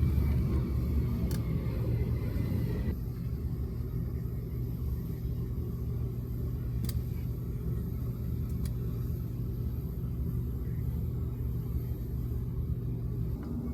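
Steady low rumble with a few faint clicks; the higher hiss drops away abruptly about three seconds in.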